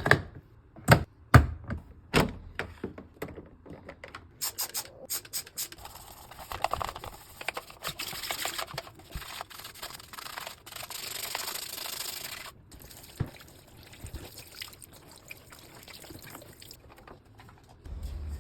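Hands-on washing-machine cleaning: a few sharp clicks and knocks, then several seconds of steady rushing, rubbing noise that cuts off suddenly, followed by small handling sounds. A low hum starts near the end.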